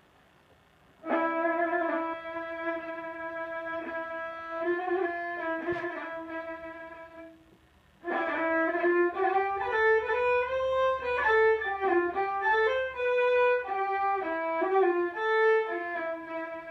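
Solo violin playing a Constantinois malouf melody. It holds one long note for about six seconds, stops briefly, then plays an ornamented phrase that climbs and falls in short steps.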